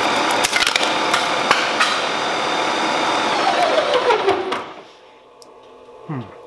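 Metal lathe running with its chuck spinning, sharp ticks sounding through the machine noise. About four seconds in it is switched off and spins down with a falling whine.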